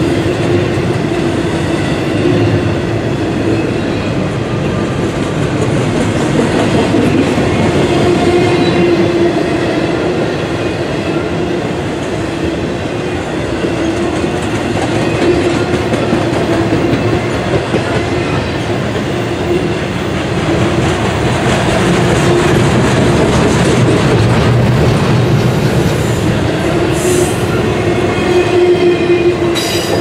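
Freight cars of a CSX intermodal train, stack cars and trailers on spine flatcars, rolling past close by on steel wheels: a loud, steady rail rumble with a constant hum running through it.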